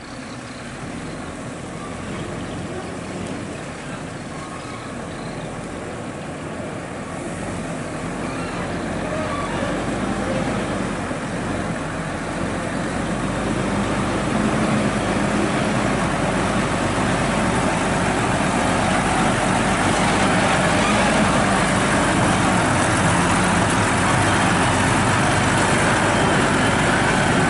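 Volvo FM heavy truck's diesel engine and tyres as it hauls a lowboy trailer loaded with an excavator (about 34 tonnes) toward the camera and past it. The sound grows steadily louder over the first half, with a low engine hum, then stays loud as the truck goes by close up.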